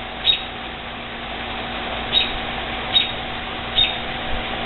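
A bird's short, high, single chirps, each falling slightly, repeated about once a second over a steady hum and hiss.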